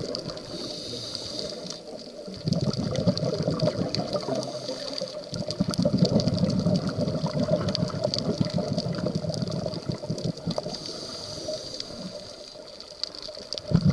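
Underwater sound: rushing, gurgling water with fine crackling clicks, swelling and easing in stretches of a few seconds.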